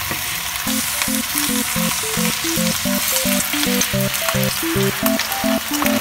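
Tocino (sweet cured pork) slices shallow-frying in oil in a pan, sizzling steadily. From about a second in, background music with a run of short notes plays over the sizzle.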